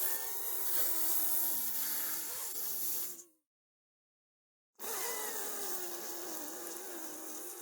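Human vocal sound effect: two long, breathy, hissing exhalation-like sounds with a faint wavering pitch underneath, the first lasting about three seconds and the second starting about five seconds in after a gap of silence.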